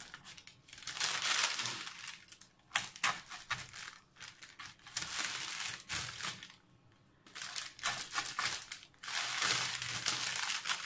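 A knife sawing through a crunchy baked pizza crust on baking parchment: crackling crunches and paper crinkling in about five strokes of a second or so each.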